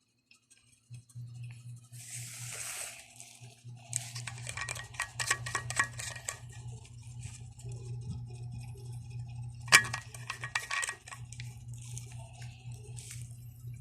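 Handling noises from unboxing a stainless steel insulated water bottle and its packaging: a brief rustle, then a quick run of clicks and rattles, and one sharp clink about two thirds of the way in followed by a few more clicks. A steady low hum runs underneath.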